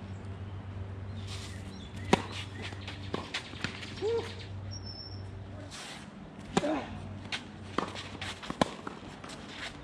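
Tennis ball struck back and forth by racquets in a rally, sharp pops with the loudest about two seconds in and others farther off, mixed with footsteps on the court.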